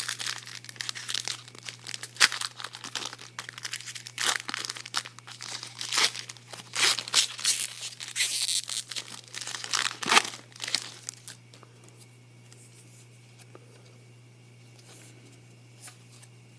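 Plastic wrapper of a 2014 Bowman Draft baseball card pack being torn open and crinkled, with many sharp crackles, for about the first eleven seconds; then it stops, leaving a faint low steady hum.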